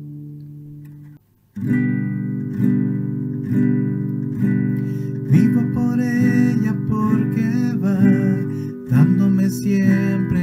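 Acoustic guitar: a D major chord rings and dies away, then stops briefly about a second in. Steady strumming follows, moving through G and E minor chords, and a man's voice sings along in the second half.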